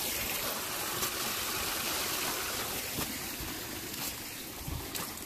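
Rushing stream water, a steady hiss, with a few footsteps on dry leaf litter.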